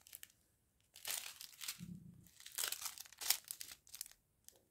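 Small plastic sachets of diamond-painting resin drills crinkling as they are handled, in several short, irregular bursts with quiet gaps between.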